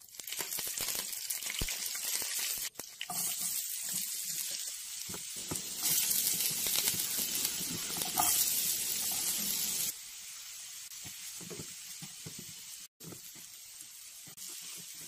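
Onion, garlic, ginger and green chillies sizzling in oil in a nonstick frying pan, with a spoon scraping and stirring through them. The sizzle is loudest in the middle and drops to a quieter hiss about two-thirds through, breaking off for an instant twice.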